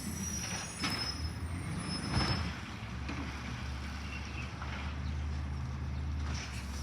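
Garbage truck engine running with a steady low drone, with two short noisy bursts about one and two seconds in.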